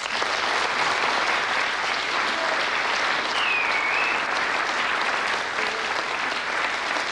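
Theatre audience applauding steadily after a spoken performance, with a brief high whistle about three and a half seconds in.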